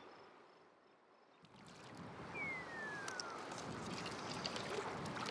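River current flowing steadily, fading in about a second and a half in after a near-quiet moment, with a single falling whistle about a second later.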